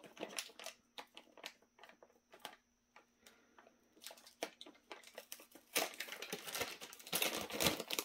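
Plastic anti-static bag crinkling as it is handled and opened: scattered crackles at first, growing into a continuous crinkling about six seconds in.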